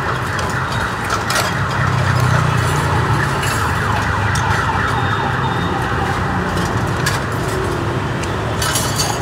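Steady street traffic noise from passing vehicles, with scattered light clinks of utensils over it.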